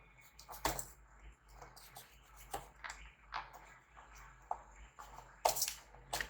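Faint handling sounds from work on an opened laptop: a scattered series of light clicks, taps and scrapes, two of them louder, about a second in and near the end.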